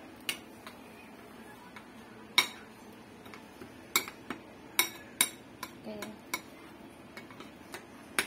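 A metal spoon stirring a flour batter in a ceramic plate, clinking against the plate in irregular sharp taps, the loudest about two seconds in.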